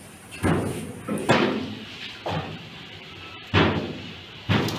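Kitchen clatter: five sharp knocks about a second apart, each ringing out briefly.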